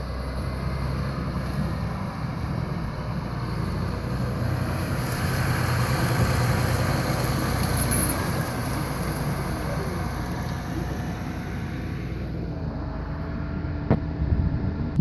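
Harvest machinery running steadily: an engine drone under a haze of mechanical noise, which thins out a few seconds before the end, with a single sharp click near the end.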